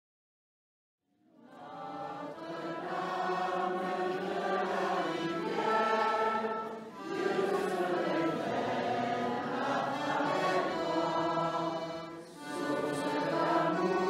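Choir singing a French cantique (hymn) to Our Lady. It fades in after about a second of silence and goes on in phrases, with short breaks about halfway through and near the end.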